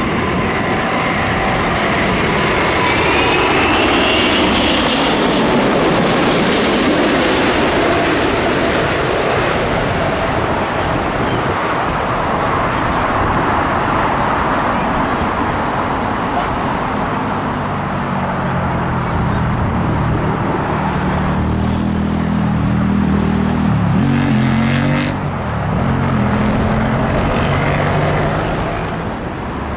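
Jet airliner on short final passing low overhead to land: loud jet engine noise with a high fan whine, strongest a few seconds in, giving way in the second half to a deep, throbbing rumble as it moves off.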